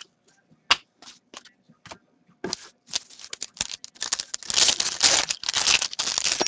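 A few scattered clicks as trading cards are handled. Then, from about four seconds in, a foil trading-card pack wrapper is crinkled and torn open in a dense stretch of crackling.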